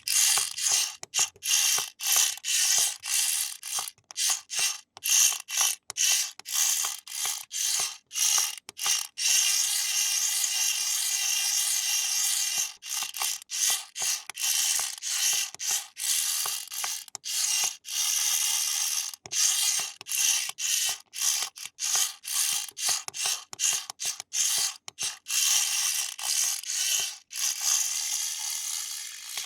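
Small electric motor and plastic gearbox of a toy RC car whirring in many quick stop-start bursts, with a longer unbroken run about ten seconds in.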